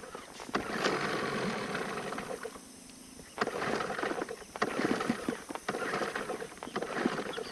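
Small motorboat under way on a river: an uneven noise of water and wind, which drops away for about a second in the middle.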